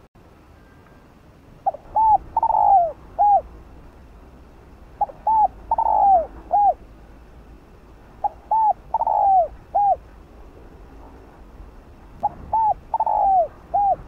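Spotted dove cooing. It gives four repeated song phrases, about one every three and a half seconds; each is two short coos, then a longer drawn-out coo that falls in pitch, then a short closing coo.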